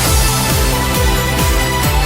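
Electronic background music with a steady driving beat: a deep kick drum about twice a second under sustained synth tones.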